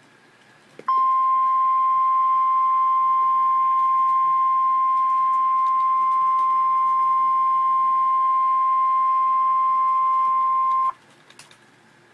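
Emergency alert warning tone, the single-pitch 1050 Hz alarm of a NOAA Weather Radio/EAS weather warning. It is a loud, steady, high beep that starts about a second in, holds for about ten seconds and cuts off sharply, signalling that a severe thunderstorm warning message follows.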